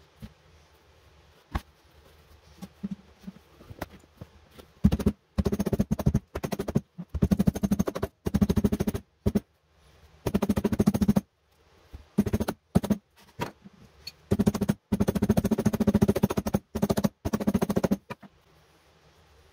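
Cloth rubbed hard over a new rubber clog outsole, giving a chattering rubber squeak in repeated bursts of about a second each from about five seconds in until near the end, after a few faint taps.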